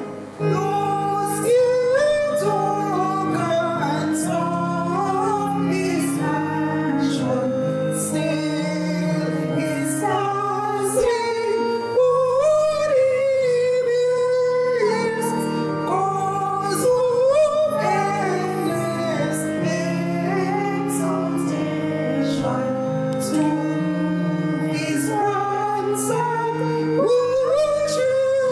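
A woman singing a slow hymn-like melody over sustained accompaniment chords.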